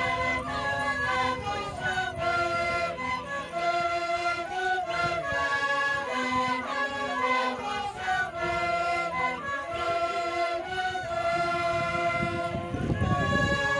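Andean carnival music from a large group: many voices and held high notes sounding together in a loose chorus of shifting pitches, over a low rumble that swells near the end.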